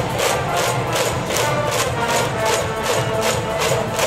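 A high school baseball cheering section's brass band playing a cheer song, held tones over a steady drum beat of about four strokes a second.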